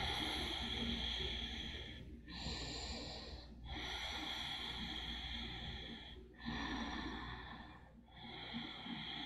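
A person breathing slowly and audibly through the nose, close to the microphone: a run of long breaths, each one to three seconds long, with short breaks between them.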